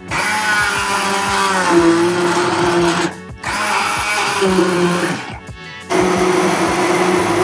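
Braun hand-held immersion blender running in a pot of soup, pureeing boiled red cabbage, carrot and potato. It starts abruptly, cuts out briefly twice, about three seconds and five seconds in, and its motor pitch shifts as it works.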